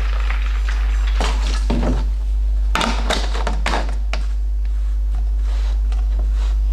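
Water pouring from a large plastic water bottle into a plastic fermenter bucket tails off right at the start. Then come several short hollow knocks in three clusters over the next few seconds as the empty plastic bottle is set down on the counter and its cap is handled, over a steady low hum.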